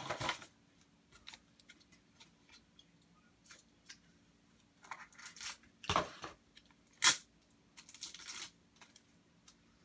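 Plastic card sleeves and top loaders being handled: scattered short rustles and light clicks, with one sharp click about seven seconds in.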